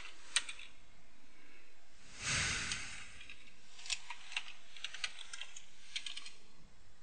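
Computer keyboard keystrokes: irregular clicks as a command is typed in short runs of keys. A short burst of noise, louder than the clicks, comes a little after two seconds in.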